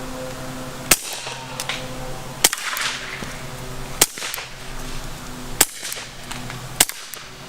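Suppressed pistol fired five times at an even pace, about one shot every second and a half. Each shot is a sharp, short crack rather than a full bang.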